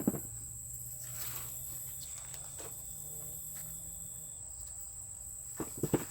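Insects chirring outdoors in a steady high drone, with light rustling. Just before the end come three or four quick, sharp knocks, the loudest sounds here.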